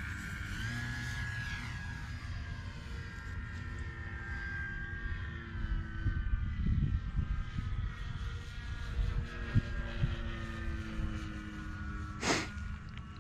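The electric motor and propeller of a Dynam C-188 Air Tractor RC model plane whine in flight overhead. The pitch falls about a second in and then drifts with throttle and distance. There is low wind rumble on the microphone and a brief rush of noise near the end.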